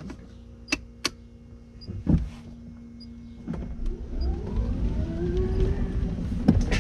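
Electric drive motor of a Saab 900 electric conversion whining as the car pulls away: the whine rises in pitch for about two seconds, then eases back down, over a steady hum from the running pumps. Two sharp clicks near the start as the drive selector button is pressed, a thump, and a loud click near the end.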